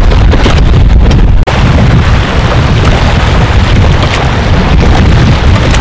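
Heavy wind buffeting the microphone, with river water rushing past a raft underneath it. The sound drops out for an instant about a second and a half in, then goes on the same.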